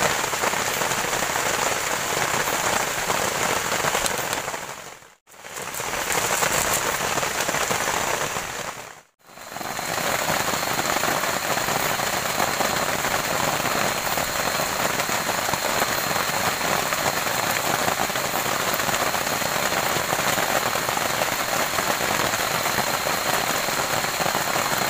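Steady rain falling, an even hiss. It breaks off to silence twice, about five and nine seconds in, and after the second break a faint thin high tone runs under it.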